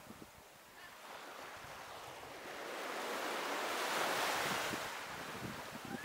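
Sea waves washing onto a beach: one wave's hiss of surf builds to a peak about four seconds in and then fades away.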